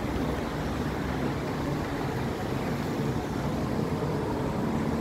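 Steady low rumble of city street ambience, with the hum of distant traffic and no distinct events.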